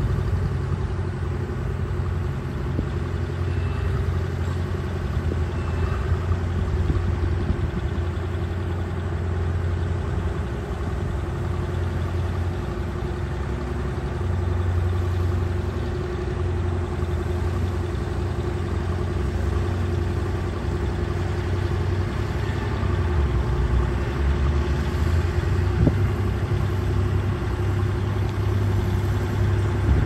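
Diesel engines of small crawler bulldozers running steadily as they push soil: a low, even drone that rises slightly in the last several seconds, with a few faint knocks.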